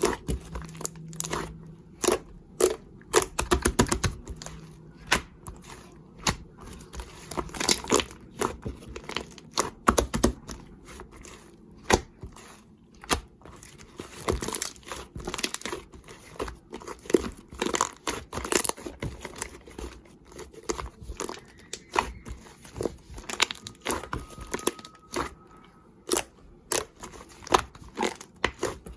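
Slime being squished, pressed and stretched by hand, making frequent irregular clicks and pops.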